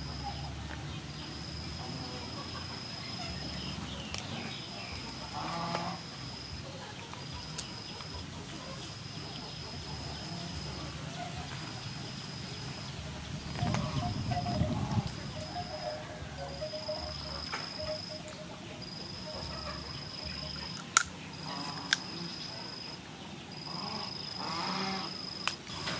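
Cooked rice field crab shells being cracked and pulled apart by hand and chewed, with small clicks throughout and two sharp cracks about a second apart near the end. A high, thin steady tone that stops and starts every second or so runs behind.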